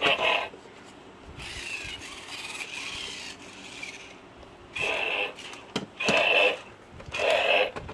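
WowWee Spideractor toy robot's geared motors whirring in about five short bursts, with clicks between them, as it moves its arms and body.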